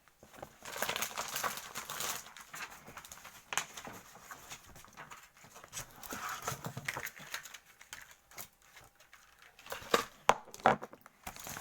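Plastic and cardboard packaging rustling and crinkling as the parts of a chocolate pen kit are unpacked, with scattered small clicks and a few sharper knocks near the end.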